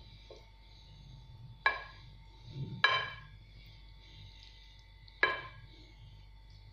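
Wooden spoon pressing and spreading minced meat in an oval glass baking dish, with soft scraping and three short ringing clinks as the spoon knocks the glass, about two seconds in, near three seconds and past five seconds.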